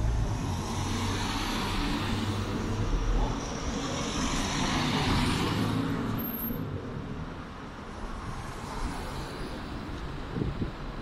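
Street traffic: a car drives past close by, its engine and tyres loudest over the first few seconds and easing off after about six seconds, over a low steady rumble of city traffic.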